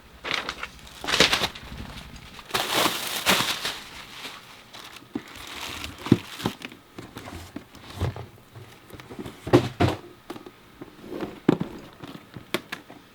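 Handling noise: two stretches of rustling and crinkling in the first few seconds, then scattered light knocks and clicks as something is handled.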